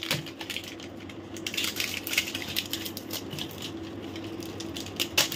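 Plastic wrapper of a compound chocolate slab being torn open and crinkled: a run of irregular crackles and ticks, with a sharper snap about five seconds in.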